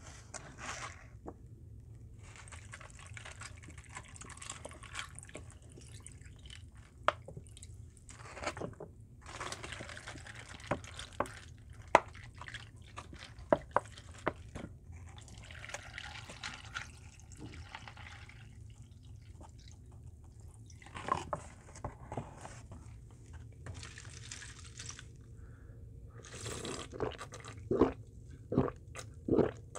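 Green grape ade poured from a spouted pouch over ice in plastic cups: a splashing pour in several stretches, with the ice cracking and clinking. In the last few seconds come a handful of loud gulps as the iced drink is swallowed.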